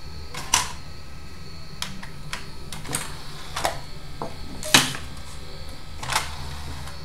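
DVD player's disc tray and loading mechanism clicking and knocking as the tray is cycled out and in: a series of sharp clicks roughly half a second to a second apart, the loudest about two-thirds of the way through, over a steady low hum. This is a function test after the faulty motor was replaced.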